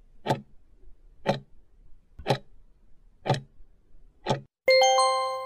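Countdown-timer sound effect ticking five times, one tick a second, then a loud electronic chime of two overlapping notes near the end, marking the end of the answer time.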